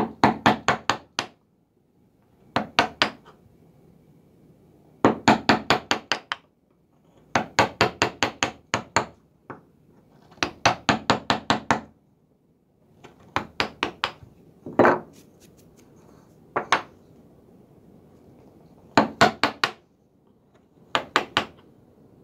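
Flat carving knife chopping and paring the end grain of a wooden block in quick short strokes: bursts of sharp, rapid taps, about seven or eight a second, each burst lasting about a second, repeated about ten times with brief pauses. Each burst takes down a pencil-marked high spot so the base will sit flat.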